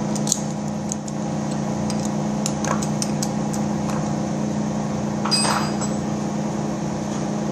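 Scattered metal clicks and clinks as a collet holder is fitted to a horizontal boring machine, with a louder ringing metal clink a little after five seconds in. Under it runs a steady machine hum.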